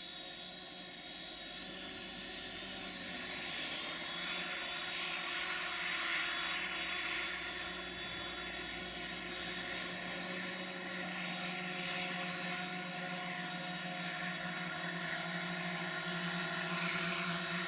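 Distant 060-DA (LDE2100) diesel-electric locomotive 60-0003-3 running, its turbocharged Sulzer engine giving a steady jet-like whistle of several held tones over a hiss. It gradually grows louder.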